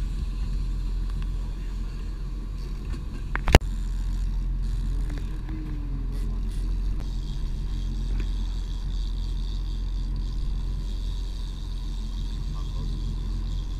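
Fishing boat's engine running steadily, a low even drone. A single sharp knock comes about three and a half seconds in.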